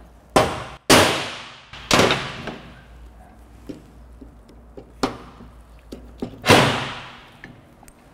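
Hammer striking a socket held on a propshaft universal joint's bearing cap: five sharp metal knocks, each with a short ring, three close together and then two more a few seconds later. The knocks shock the bearing cap so that the tight circlips can be freed from the worn joint.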